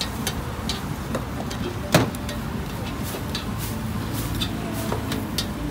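Steady low rumble of market background noise with scattered light clicks, and one sharp knock about two seconds in as something is set down on the steel counter.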